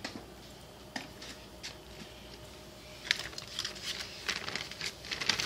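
A few faint clicks, then from about three seconds in a crinkling rustle of a plastic bag being handled.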